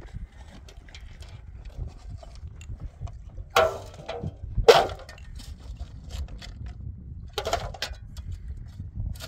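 Metal basin clanking as stones and soil land in it during digging in stony ground, with a few loud clatters about three and a half, four and a half and seven and a half seconds in, over a low steady wind rumble.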